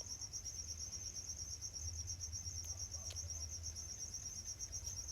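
Cricket trilling steadily, a continuous high-pitched fast pulsing, over a faint low hum.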